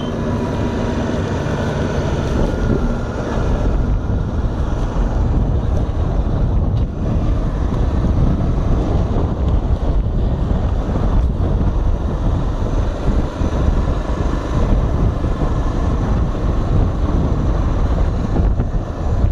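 Wind buffeting the microphone on a moving Honda XR 250 Tornado, over the bike's single-cylinder four-stroke engine running at cruising speed.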